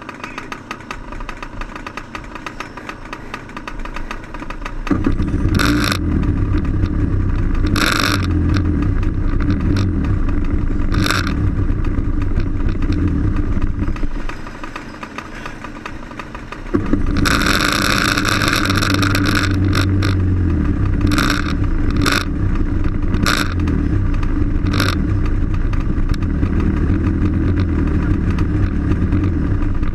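A 125cc two-stroke TaG kart engine fires about five seconds in and runs, cuts out about fourteen seconds in, then fires again a few seconds later and keeps running. Several short bursts of louder noise come over the running engine.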